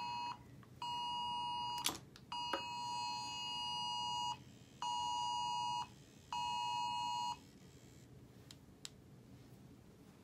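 Electronic beep tone sounding on and off: one steady pitched beep after another, each lasting about one to two seconds with short gaps, five in all. Two short clicks fall between the first beeps, and the beeping stops a little past halfway.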